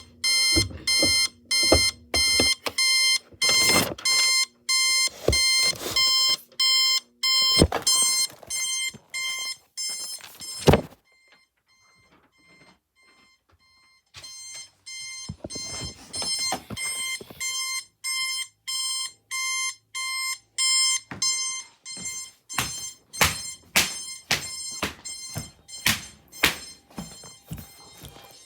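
Electronic alarm beeping in rapid pulses of a high, buzzy tone, a few beeps a second. A couple of heavier thumps cut in during the first half, the loudest just before the beeping stops for about three seconds, and then it starts again.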